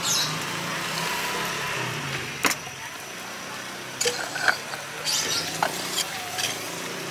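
Clay serabi pans and their clay lids clinking and knocking as batter is poured and the pans are covered: one sharp click about two and a half seconds in and a cluster of knocks around four to six seconds in. Under it a steady hum of engines and traffic.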